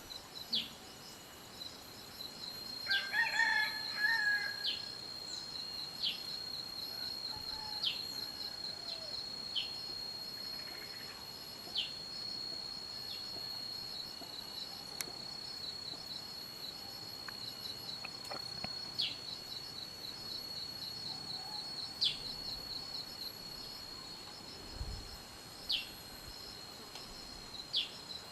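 A steady, high, fast-pulsing insect trill, with a bird's short, sharp, down-slurred chirps every second or two. A rooster crows once, about three seconds in.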